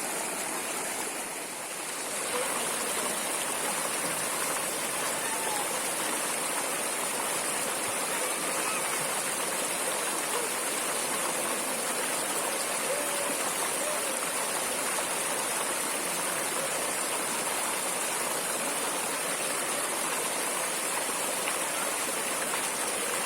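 Flowing water of a stream, a steady rushing that softens briefly about a second in.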